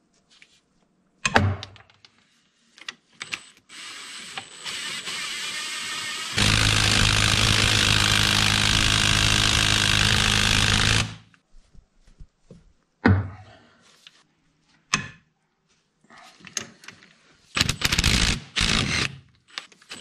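Cordless drill-driver with a socket extension spinning out a bolt. The motor runs softly with a high whine for about three seconds, then at full speed for about four and a half seconds, and stops. Metal clicks and clinks of socket and bolt come before and after.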